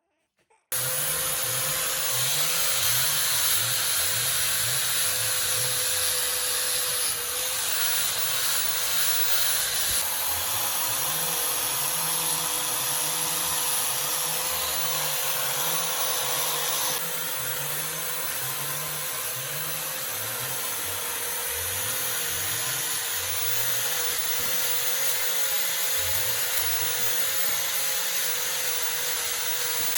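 A power tool running steadily, starting abruptly just under a second in, with a high, hissing whine over a steady hum.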